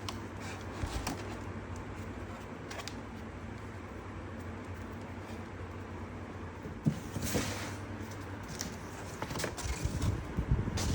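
Handling of packaging and robot-vacuum parts during unboxing: scattered light clicks and knocks, a brief rustle about seven seconds in, and a run of knocks near the end, over a steady low hum.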